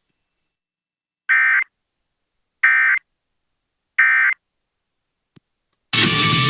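Emergency Alert System end-of-message (EOM) data bursts: three short bursts of buzzy digital two-tone data, evenly spaced about 1.3 seconds apart, marking the end of the alert. Music starts near the end.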